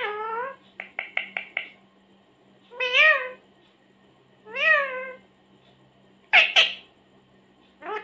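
Ring-necked parakeet calling in short, rising-and-falling squawks: one right at the start, a quick run of five short chirps about a second in, single calls near three and five seconds, two sharp clipped calls in a row past six seconds, and another call at the end.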